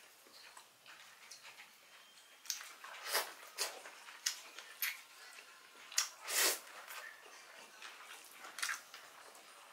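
Close eating sounds of a meal taken by hand: a string of short wet clicks and smacks from chewing and from fingers tearing grilled chicken and working rice, louder a few seconds in and again around the middle.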